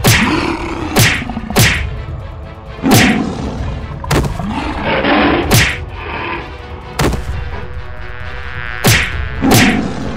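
Cartoon fight sound effects: about nine sharp whacking hits, roughly one a second, between gliding animal growls and roars, over a continuous background bed.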